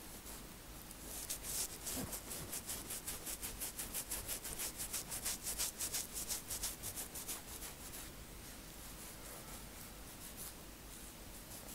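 Fingertips and nails scratching and rubbing quickly over a cornrowed scalp, about six strokes a second, louder from about a second in and easing off after about eight seconds.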